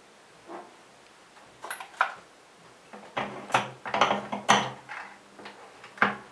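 Lee four-hole turret reloading press being handled: a string of sharp metallic clicks and clunks, a few at first, then a busy clatter about halfway through, and one last click near the end.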